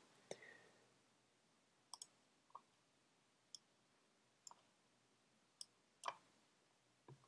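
Near silence broken by a handful of faint, irregularly spaced computer mouse clicks.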